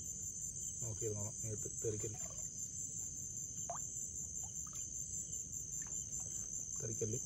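Steady high chirring of night insects, crickets, with a fine even pulse. A man's low voice sounds briefly in the first two seconds and again near the end.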